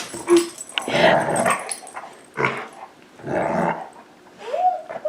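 Pet dogs growling in a string of rough bursts about a second apart, with a rising whine near the end that carries on as a howl.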